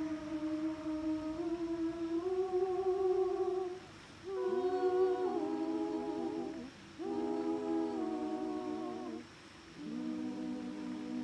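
Small women's choir singing a cappella, soft and slow, in long held notes with several voices in harmony. The song comes in short phrases with brief pauses for breath about four, seven and nine and a half seconds in.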